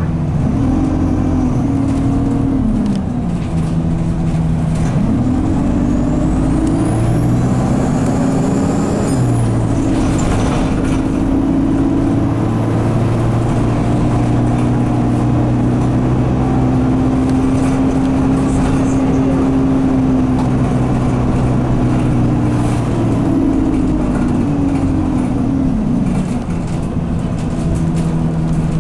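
Alexander Dennis Enviro200 bus engine pulling, its note rising and falling and then held high for a long stretch because the gearbox is stuck in 2nd/3rd and will not change up. A high turbo squeal climbs steeply for a few seconds and cuts off, and fainter whistles come back later.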